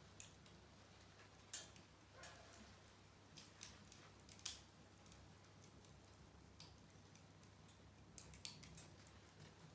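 Small wood fire crackling faintly: scattered sharp pops and ticks, the loudest about a second and a half and four and a half seconds in, over a low steady hum.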